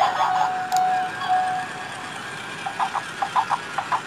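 Electronic sound chips of battery-powered walk-along plush toys (a unicorn and a puppy): a held electronic tone for about the first second and a half, then a run of short, quick barks from about three seconds in.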